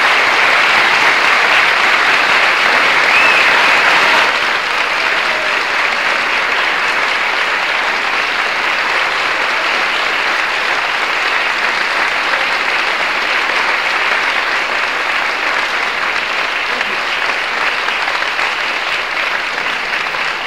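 Concert audience applauding steadily, easing a little about four seconds in and then slowly tapering off.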